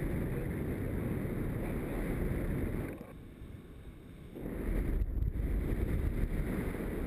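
Wind buffeting the microphone of a camera carried by a paraglider in flight, a loud low rumble that drops away for about a second and a half near the middle, then comes back.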